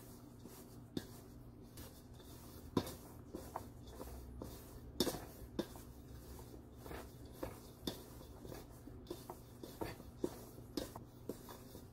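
Hand mixing crumbly pie dough in a stainless steel bowl: soft rubbing and squishing, with irregular light taps and clicks of the hand against the steel, the loudest about three and five seconds in. The dough is nearly at its crumbly stage.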